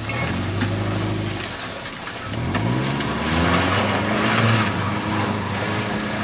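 A car engine revving up and down under load on a rough trail, with a noisy rush of tyres and brush that swells midway.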